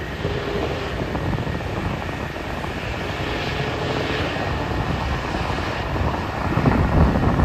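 Distant Boeing 737-800's CFM56 jet engines at takeoff thrust during the takeoff roll: a steady rumble with a hiss that swells about three to four seconds in, mixed with wind buffeting on the microphone.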